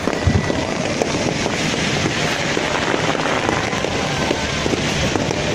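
Fireworks crackling and popping in a dense, continuous barrage of many small bangs at a steady level.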